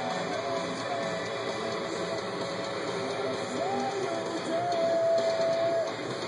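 Background music led by guitar, with a long held, bending lead note in the second half.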